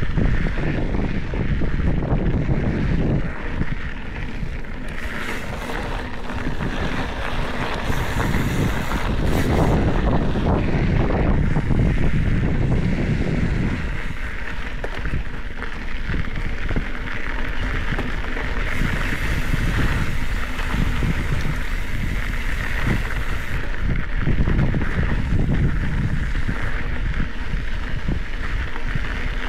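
Wind rushing over the microphone while a Specialized Epic 8 Evo mountain bike rolls along a dry dirt singletrack, its tyres running over dirt and gravel. The low wind rumble is heavier in the first half and eases about halfway through.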